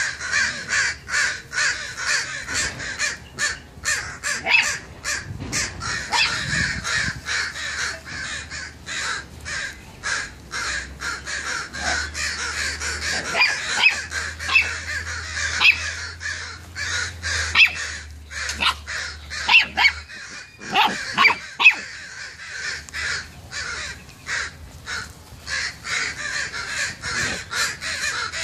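A group of crows cawing over and over, many calls overlapping without a break: alarm calls raised over a downed crow.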